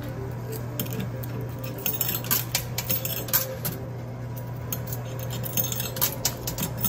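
Coin pusher machine with quarters clinking and clattering against each other as the pusher shelf shoves them. There are two spells of rapid clicking, about two seconds in and again near the end, over a steady low hum.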